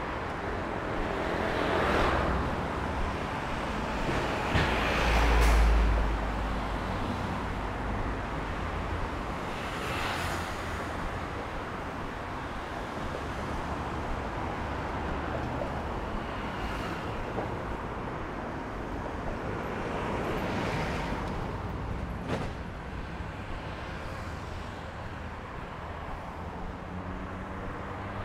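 Road traffic on a multi-lane city avenue: cars passing one after another, with the loudest pass about five seconds in carrying a strong low rumble.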